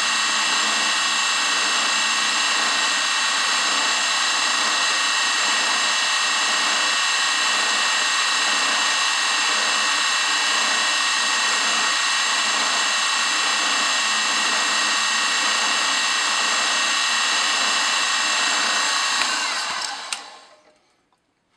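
Benchtop milling machine running steadily with a high motor-and-spindle whine while a small hand-held part is fed against the end mill to trim it. Near the end it stops, with a click or two, and falls quiet.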